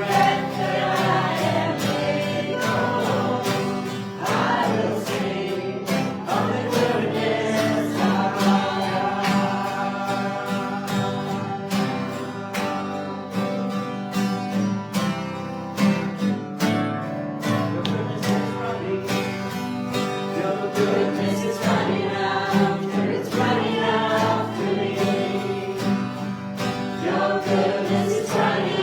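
Congregation and worship band singing a contemporary worship song, voices over guitar with a steady beat.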